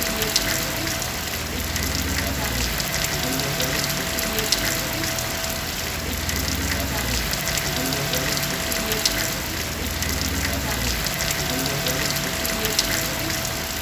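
Steady rain falling on a garden, a constant even hiss with individual drops tapping sharply through it.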